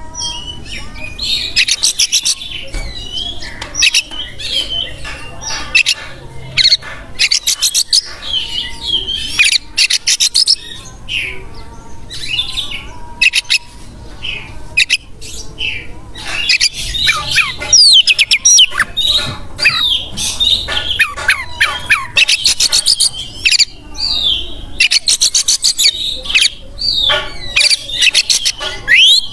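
Oriental magpie-robin (kacer) in full, loud song: a fast, varied run of rattling trills and high gliding whistles in bursts with short gaps.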